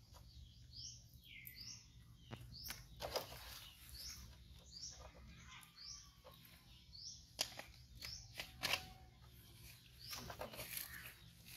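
A bird repeating a short rising chirp over and over, under a second apart. Scattered sharp rustles and knocks come through it, the loudest about three-quarters of the way in, as a baby macaque scrambles over a bamboo fence rail among leafy plants.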